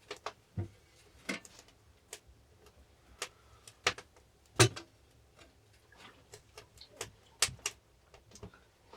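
Irregular sharp clicks and knocks, several of them with a low thud, at no steady rhythm; the loudest comes about halfway through.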